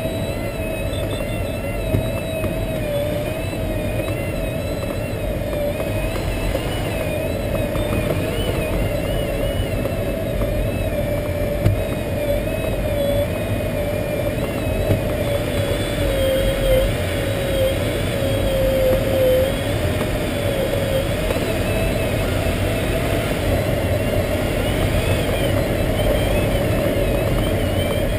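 Airflow rushing past the cockpit of an SZD-51-1 Junior glider in flight, heard from inside the cockpit. It is a steady rush with a thin tone that wavers slowly up and down in pitch.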